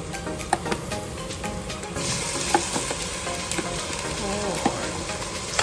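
Food sizzling in a hot frying pan as it is stirred, with scattered clicks and scrapes of the utensil against the pan. The sizzle grows louder about two seconds in.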